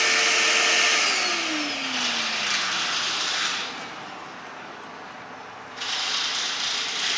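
Shop vacuum on the wood gasifier is switched off about a second in; its motor's pitch falls steadily as it winds down. Then come two bursts of hissing, each lasting a second or two.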